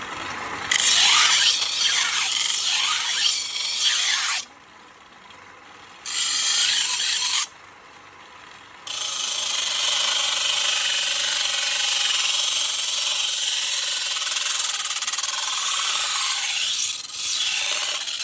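Steel knife blade held against a pedal-driven grinding wheel on a bicycle: a harsh hissing scrape of metal on stone. It stops twice, for a second or so each time, about four seconds in and again near seven and a half seconds, before a long unbroken pass.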